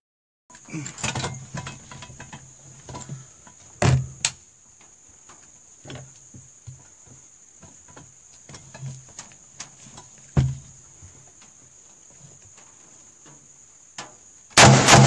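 A steady, high-pitched insect chorus, with scattered light clicks and two sharper knocks, about four and ten seconds in, from a rifle being handled on a bench rest. Near the end, loud music with a steady beat comes in over it.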